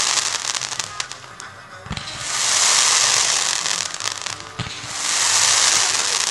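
Fireworks bursting with crackling stars: a dull bang, then a long sizzling crackle. This happens about three times, roughly two and a half seconds apart.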